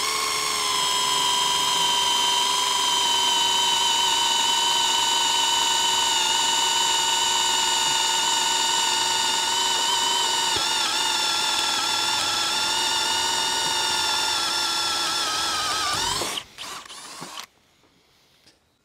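Bosch GSB 185-LI cordless drill boring through a steel flat bar with a multi-material bit: a steady, high motor whine under load. It winds down and stops about sixteen seconds in, followed by a few short knocks.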